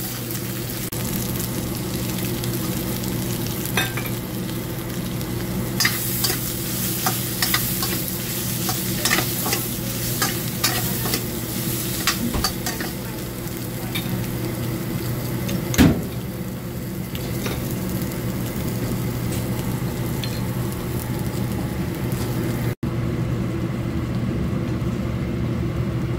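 Shrimp and vegetables sizzling in a carbon-steel wok on a gas burner while a metal wok spatula stirs and scrapes, with frequent clicks and clanks of metal on the pan and one louder clank about 16 seconds in. The sizzle softens over the last third, over a steady low hum.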